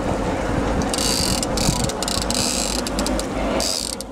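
Line-counter trolling reel clicking as line is worked during the fight with a large king salmon, over a steady low rumble.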